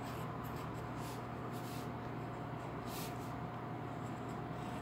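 Pencil lead scratching on paper in short, irregular shading strokes, over a steady low hum.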